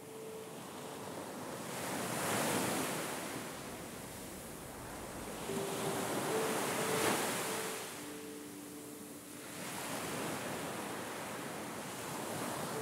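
Ocean surf: washes of noise that swell and fall back about every four to five seconds, with a few faint held tones underneath.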